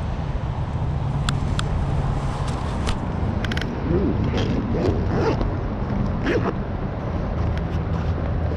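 Steady traffic noise from a nearby major highway, with a few small sharp clicks.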